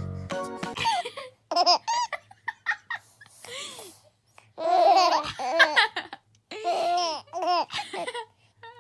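Baby babbling and laughing in several short bouts, with pauses between them.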